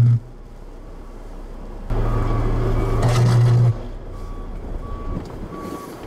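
Loud low electrical buzz of a power line arcing in a power flash; it cuts off just after the start and returns about two seconds in for nearly two seconds. Then a snowplow's back-up alarm beeps about every 0.7 seconds over a steady rush of wind.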